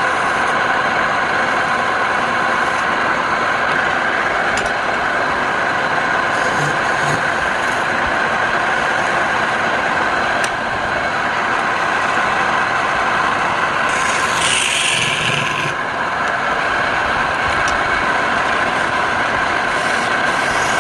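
Wood lathe running steadily, with a brief higher hiss about fourteen seconds in.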